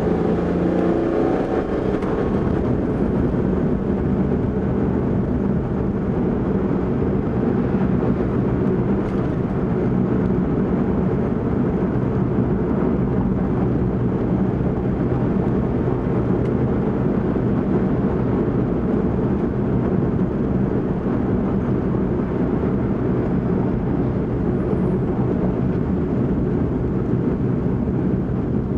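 Car engine and tyre noise heard from inside the cabin while driving, a steady drone. The engine note shifts a little in the first couple of seconds.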